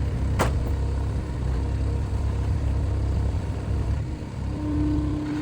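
A large engine running steadily with a low rumble. There is a sharp click about half a second in, and a steady whine joins a little after four seconds.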